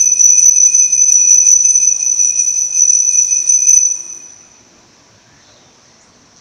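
Altar bells shaken continuously, making a steady high-pitched ringing with rapid strikes of the clapper. They are rung as the signal for the elevation of the host after the consecration. The ringing stops about four seconds in and dies away.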